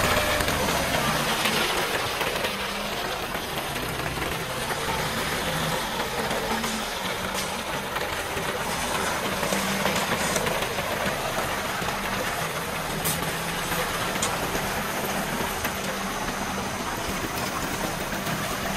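Sinotruk concrete mixer truck discharging: the diesel engine runs steadily while the drum turns, with a steady rush of wet concrete sliding down the chute.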